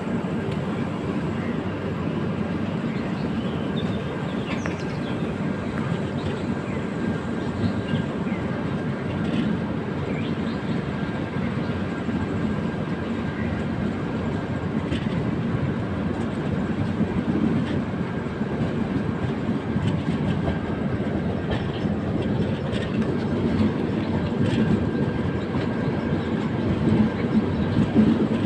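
Passenger train running along the track: a steady rumble of wheels on rails with scattered faint clicks, growing a little louder near the end.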